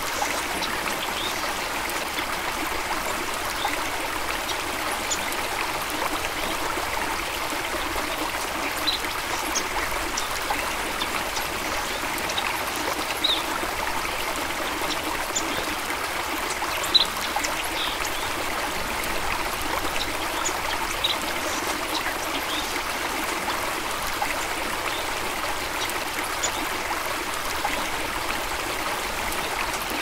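A stream trickling steadily, with brief high ticks of water here and there.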